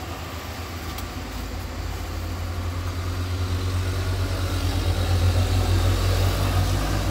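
Low engine rumble of a heavy tanker truck driving past, growing louder over the first five seconds or so and staying loud to the end.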